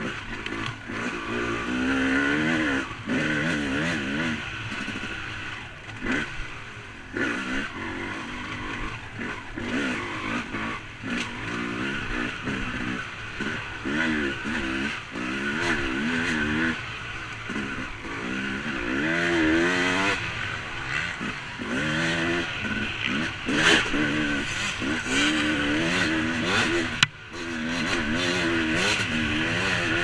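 Dirt bike engine heard on board, its pitch climbing and dropping every second or two as the throttle is opened and shut through the gears. A single sharp knock near the end, with a brief dip in the engine sound.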